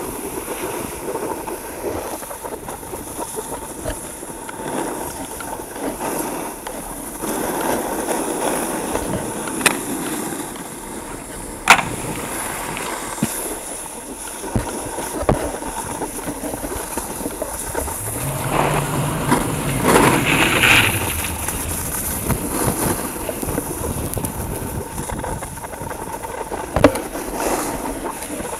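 Snowboards sliding and carving on groomed snow: a steady scraping hiss, louder for a stretch a little past halfway, with a few sharp knocks, the loudest a little before halfway.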